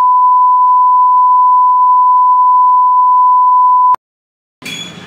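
Loud, steady single-pitch beep tone of the kind used as a censor bleep, cutting off sharply about four seconds in. After a short silence, faint background noise comes in near the end.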